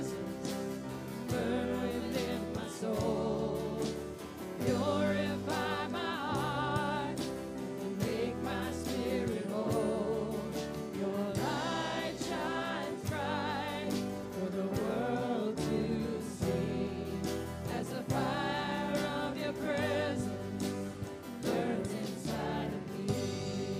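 Live worship band playing a slow gospel praise song: several voices singing with vibrato over guitars, bass and drums.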